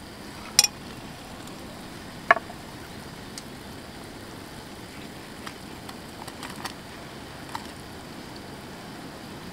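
A pot of dumpling soup at a rolling boil, bubbling steadily. Two sharp clicks come about half a second and two seconds in, with a few lighter taps later as vegetables go in.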